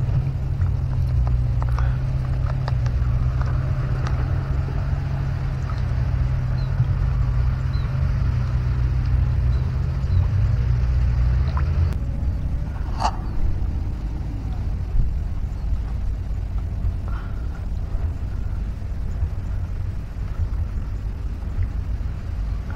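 Steady low rumble of wind buffeting the microphone, with one sharp click about 13 seconds in.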